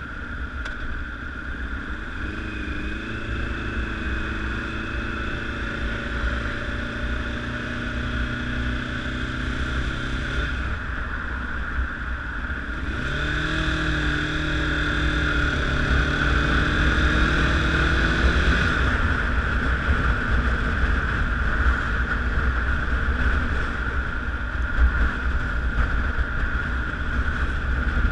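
Honda CBR1000RR sportbike's inline-four engine pulling under way, its pitch rising twice as it accelerates, over heavy wind rushing across the microphone. The engine note fades about two-thirds of the way in, leaving mostly wind, which is louder near the end.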